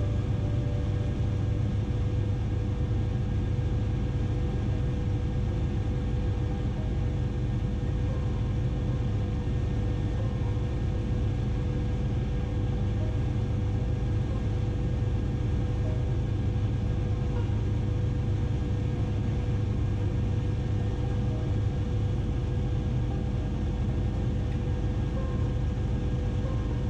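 2004 Bell 407 helicopter in flight: a steady low rotor drone with a constant whine above it, unchanging throughout.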